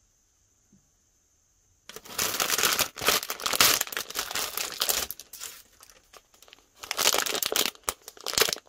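Crinkly plastic blind-bag packaging being handled and opened. Near silence for about two seconds, then dense crinkling that eases past the middle and picks up again near the end.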